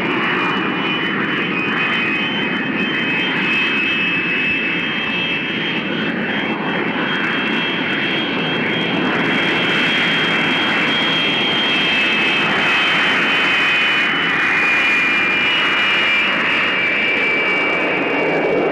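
SEPECAT Jaguar jet engines (twin Rolls-Royce Turbomeca Adour turbofans) running at high power, a steady high two-tone whine over a continuous rush of jet noise. The hiss grows stronger about halfway through, and the whine dips slightly in pitch near the end.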